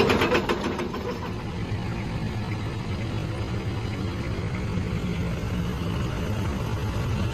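Mini excavator's diesel engine running steadily at a low idle; a fast rattle that overlays it dies away about a second in.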